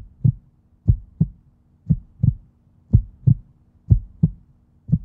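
Heartbeat sound effect: pairs of low thumps in a lub-dub rhythm, about one beat a second, over a faint steady hum.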